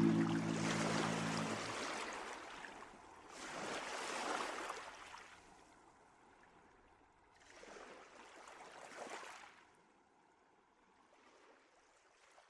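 Rushing water swelling and dying away in three surges a few seconds apart, with a faint fourth near the end, like waves washing in.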